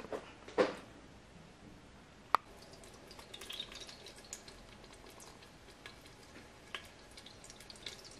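Cooking oil heating in an Instant Pot's stainless steel inner pot on sauté, starting to sizzle with faint scattered crackles and ticks, the sign that the pot is hot enough to add the meat. A knock about half a second in and a single sharp click about two seconds in stand out above it.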